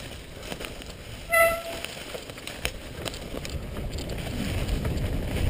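Mountain bike rolling over a leaf-covered dirt trail: tyre rumble with scattered clicks and rattles, growing louder toward the end. About a second in, a brief high squeal cuts through.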